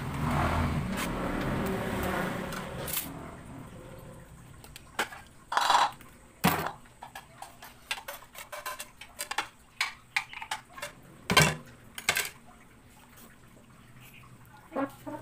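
Kitchen knife knocking and scraping on a plastic cutting board, then the chopped garlic scraped off the board into a ceramic bowl, with a series of sharp knocks and clinks against the bowl. A steady rushing noise fills the first three seconds.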